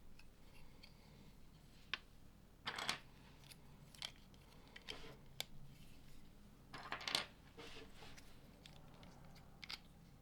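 Plastic LEGO pieces being handled and snapped together: scattered sharp clicks with two short rattling clusters, the loudest about a quarter of the way in and again past the middle.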